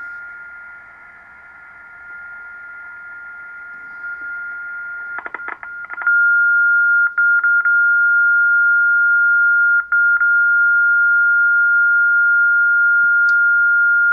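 Kenwood TS-700SP transceiver's speaker giving a steady beat tone from an injected 10.7 MHz test signal over receiver hiss, a sign that the IF strip is probably fairly good. About six seconds in the tone becomes much louder and the hiss drops away, with a few short crackles.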